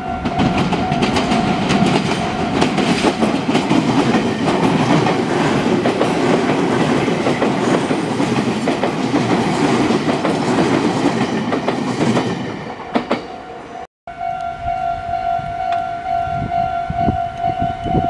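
Red Meitetsu electric train passing close by over a level crossing, its wheels clattering over the rail joints for about twelve seconds before it fades away. After a brief dropout, the level-crossing warning bell is heard ringing steadily in a single tone.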